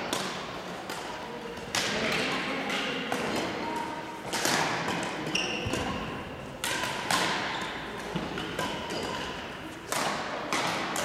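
Badminton rackets striking a shuttlecock during rallies, a sharp hit every two or three seconds, each ringing on in the echo of a large sports hall.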